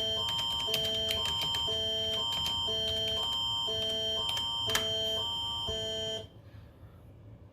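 Canadian Alert Ready emergency attention signal: two electronic chords take turns about every half second, a higher one and a lower one, over a steady high tone. The signal cuts off suddenly about six seconds in.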